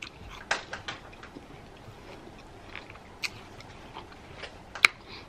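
Close-up chewing of crisp Fuji apple slices topped with honey: a run of scattered wet clicks and crunches, the sharpest and loudest one a little before the end.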